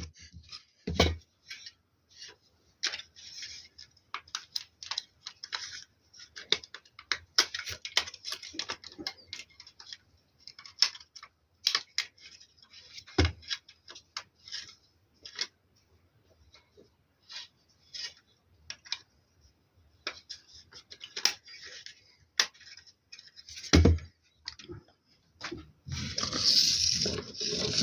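Irregular small clicks, taps and rustling of small hard objects being handled, with a heavier knock about halfway through and another near the end, followed by a denser stretch of scraping.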